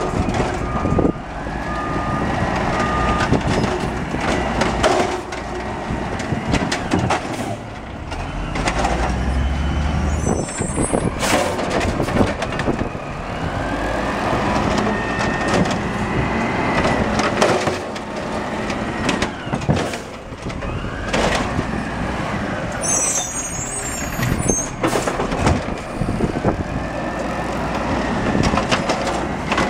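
2001 Peterbilt garbage truck with an Amrep automated side-loader arm collecting carts: the diesel engine runs under a rising and falling hydraulic whine as the arm lifts and tips each cart, with several bangs of the carts and a few short air hisses.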